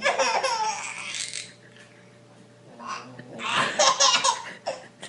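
A person laughing in two bouts: one right at the start lasting about a second and a half, and a second, louder one about three seconds in.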